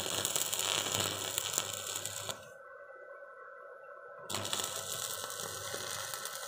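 Stick (electrode) arc welding on steel: the arc crackles and sizzles for about two seconds, goes out for about two seconds, then is struck again and crackles once more.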